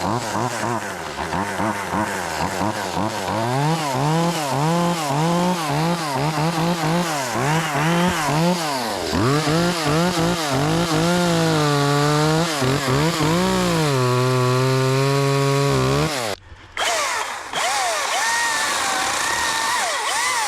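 Echo CS-2511T top-handle chainsaw's small two-stroke engine running at high revs, its pitch rising and dipping again and again as it is throttled and loaded in cuts, then held steady. It stops abruptly near the end, and a different, higher wavering whine follows.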